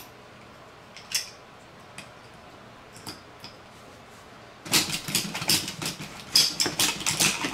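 Akedo battle-toy controllers being button-mashed so the two plastic figures strike each other: a rapid, loud run of hard plastic clacks and clicks starting almost five seconds in. Before it come a few single clicks of a figure being snapped onto its controller.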